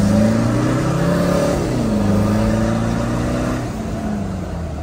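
Toyota Fortuner's engine running through a newly fitted HKS cat-back exhaust under hard acceleration, heard from the cabin. The pitch climbs, drops at a gear change nearly two seconds in, then holds fairly steady.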